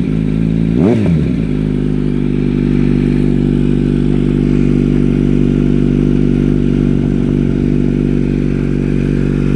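Kawasaki Z900's inline-four engine through an Akrapovic Shorty slip-on exhaust with the muffler and catalytic converter cut out. A quick blip of the throttle about a second in rises and falls, then the engine settles into a steady, deep idle.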